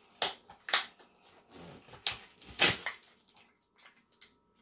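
Toy packaging being handled as a piece is pulled out of it: four sharp crinkling rips in the first three seconds, then faint handling noises.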